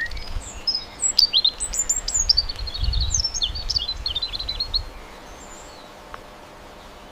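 Small birds chirping and twittering in quick, high-pitched bursts over a low rumble, for about five seconds; then the chirping stops, leaving a faint hiss.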